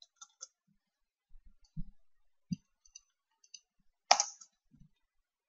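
Computer keyboard keys clicking in scattered taps during typing, with one louder click about four seconds in.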